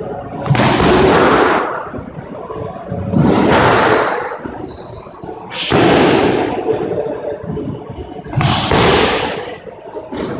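Four hard kicks landing on handheld kick pads, about every two and a half seconds. Each is a sharp smack followed by a long echo off the bare walls of a squash court.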